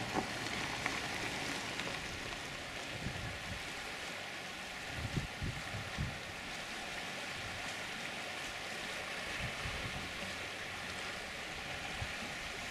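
Steady rushing outdoor noise of wind and choppy water, with a few low wind bumps on the microphone about five to six seconds in.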